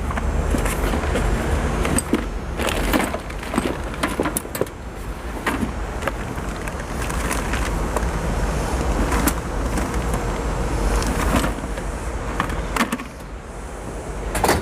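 Metal hand tools clattering and clinking as a toolbox is rummaged through in search of a grease gun, with many irregular knocks and clicks over a steady low rumble.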